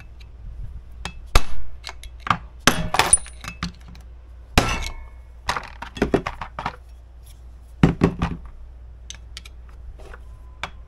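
Hand tools knocking and clinking on metal as a stuck shaft seal is pried and tapped out of a tractor hydraulic pump. The strikes come irregularly, with a few louder knocks spread among lighter clicks.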